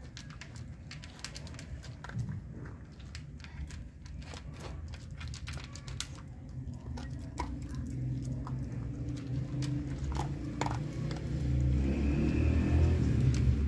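Dog crunching dry kibble out of a plastic bowl: a steady run of small, sharp clicks. A low rumble builds through the second half and is loudest near the end.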